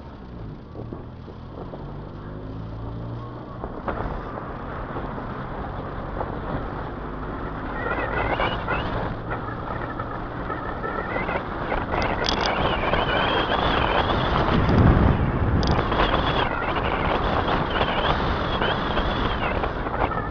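Car driving, its engine running under a rising rush of wind and road noise as it gathers speed. A wavering high tone comes and goes over the noise from about eight seconds in.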